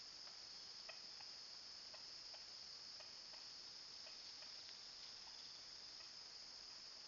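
Faint, steady high-pitched chorus of insects, with soft scattered ticks a few times a second.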